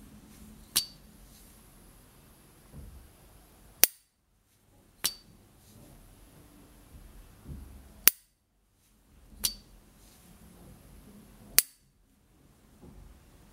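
1970s S. T. Dupont Ligne 1 gas lighter lid flipped open and snapped shut three times. Each opening gives the lighter's high metallic "ping", which rings on until the lid snaps closed with a sharper, louder click that cuts it off.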